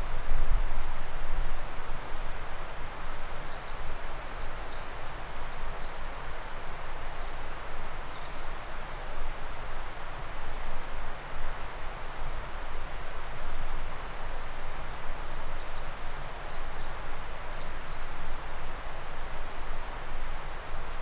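A steady rushing noise with a low rumble, over which a small songbird sings two high, thin songs of quick trills, each about three to four seconds long, a few seconds in and again near the end.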